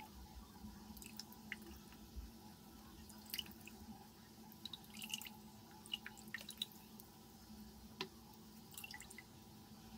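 Water dripping and soft squishing as water-soaked lentil fritters (bora) are squeezed out by hand: faint, scattered drips over a steady low hum.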